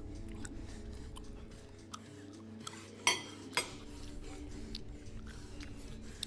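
Cutlery and a plate clinking and knocking in a few scattered short clicks, the two loudest about three seconds in and half a second apart, over a low steady hum.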